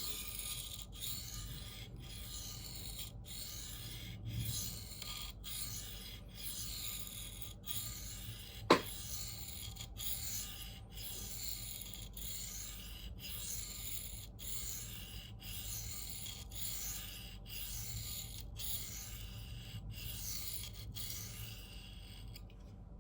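A CPM 4V steel knife blade rasping back and forth across a 1200-grit diamond plate in freehand sharpening, a little over one stroke a second, to refine the edge and raise a burr. There is a single sharp click about nine seconds in, and the strokes stop near the end.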